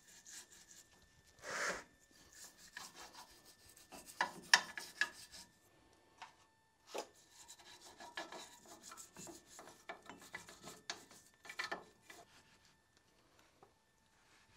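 Hand work on a rusty rear wheel hub: on-and-off scraping and rubbing, broken by sharp metallic clicks, the loudest a cluster about four seconds in.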